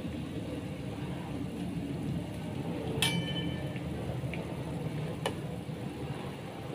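Fish soup simmering in an aluminium wok, a steady bubbling, with a metal spatula striking the wok with a sharp clink that rings briefly about three seconds in, and a second sharp tap about two seconds later as it stirs.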